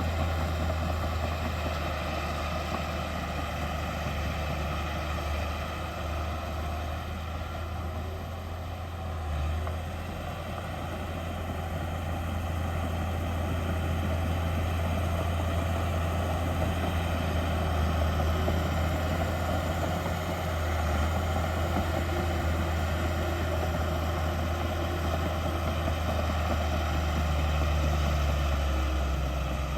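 Heavy diesel engine of earthmoving machinery running steadily with a deep low hum, easing slightly about a third of the way in, then picking back up.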